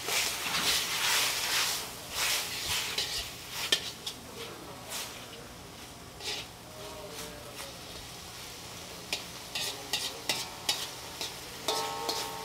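Beef strips sizzling in hot oil in a wok, stirred with metal tongs that click and scrape against the pan. The sizzle is strongest in the first few seconds, then gives way to scattered clicks of the tongs.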